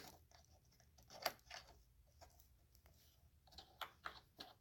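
Faint, irregular clicks and light taps of small jigsaw parts being handled and fitted, a few sharper ones about a second in and near the end.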